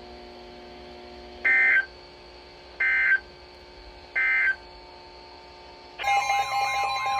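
Emergency Alert System end-of-message on NOAA Weather Radio: three short bursts of digital data tones about a second and a half apart, over faint radio hum. Near the end a steady tone starts together with several warbling electronic tones.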